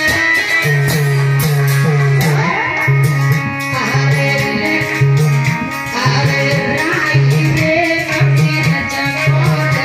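Loud devotional bhajan music with a steady, repeating drum beat under a melodic instrument line.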